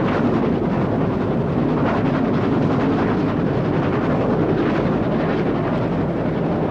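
LNER A3 Pacific steam locomotive 4472 Flying Scotsman running at speed with its train, a steady rumble.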